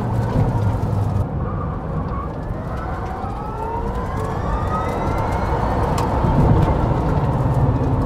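Rimac Nevera's quad electric motors whining inside the cabin, the whine rising in pitch as the car accelerates hard, over steady tyre and road noise.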